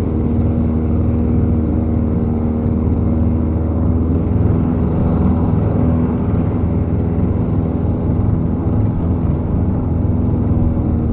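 Small boat outboard motor running steadily under way, with water rushing along the hull. The owner feels it is not moving the boat as fast as it ought to, as if it has only one gear.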